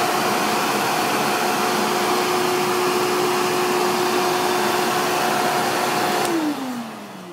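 Small canister vacuum cleaner motor running steadily with a whine over a rush of air, its exhaust blowing into pantyhose socks taped over the vent ports. It is switched off about six seconds in and winds down, the whine falling in pitch.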